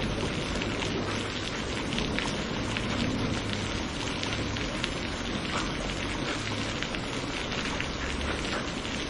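Steady rain falling, with many individual drops ticking sharply on a surface over an even hiss.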